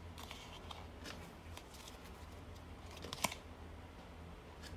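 Playing cards rustling and clicking faintly as a deck is pushed out into a one-handed fan, with one sharper click about three seconds in.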